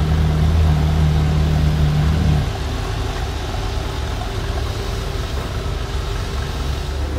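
Ferrari F12 Berlinetta's 6.3-litre V12 idling steadily; about two and a half seconds in the idle settles lower and quieter.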